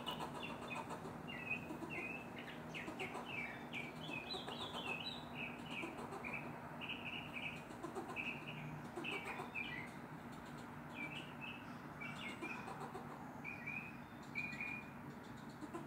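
Tree squirrel barking: a long run of short, high, chirping barks, several a second with brief pauses, that stops about a second before the end. It is an alarm call scolding a cat.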